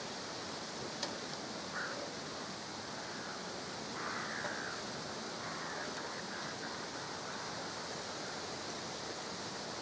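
Steady hiss of lamb liver and fat-tail kebabs sizzling over charcoal, with melted fat dripping onto the hot coals. A single light metallic click about a second in as the steel skewers are turned on the mangal's edge.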